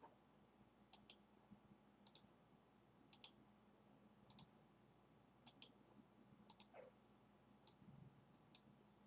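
Computer mouse buttons clicking as links are right-clicked and options picked from a context menu: quick pairs of clicks about once a second, over near silence.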